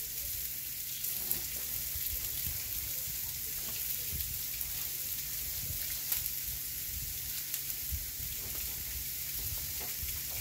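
Salmon fillets sizzling in melted butter on an indoor electric grill: a steady hiss with a few faint pops.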